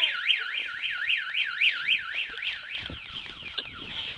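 Car alarm siren wailing, sweeping rapidly up and down in pitch about three times a second, fading over the second half.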